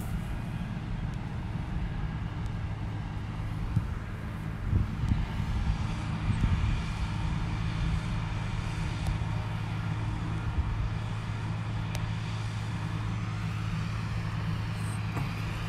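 Distant tractor engine running steadily as it disks the field, with wind rumbling on the microphone.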